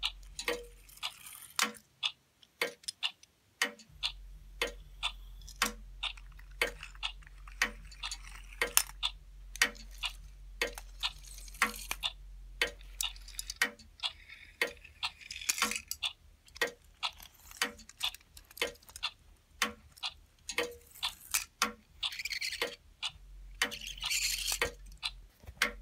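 Clock ticking steadily, about two ticks a second, with a soft rustle now and then.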